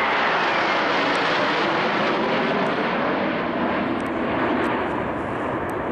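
Jet engines of a close formation of Northrop F-5E Tiger II fighters passing overhead: a loud, steady roar with a high whine that falls in pitch during the first second, then the roar slowly fades.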